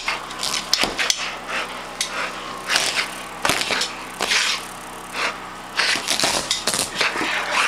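A dog biting, tearing and pulling at a couch: irregular cracking, ripping and scraping noises at short, uneven intervals.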